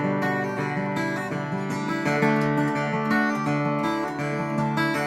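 Solo acoustic guitar, played with a thumb pick, playing the instrumental introduction to a folk song.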